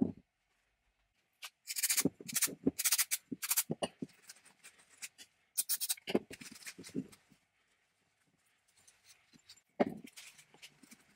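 Oily metal parts of a 1930s Cutawl rotary jigsaw being handled and wiped with a shop rag on a wooden workbench: irregular rubbing and scraping, with a few short knocks as parts are moved or set down.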